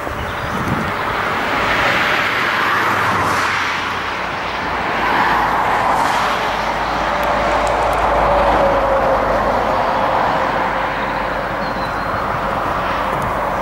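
Road traffic passing close by: a steady noise of tyres and engines that swells and fades as vehicles go past, with one vehicle's whine falling in pitch as it passes about halfway through.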